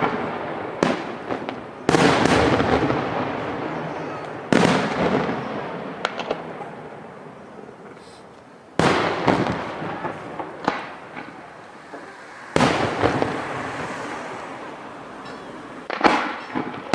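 Ponte Fireworks' aerial shells bursting overhead: five big sharp bangs a few seconds apart, each dying away slowly, with smaller pops and crackles in between.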